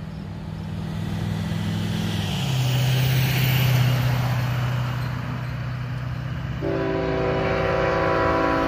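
Union Pacific diesel locomotive's air horn starts sounding a steady multi-note chord near the end, over the low drone of the approaching locomotive engines. About three seconds in, a pickup truck passes close by with a rush of tyre and road noise.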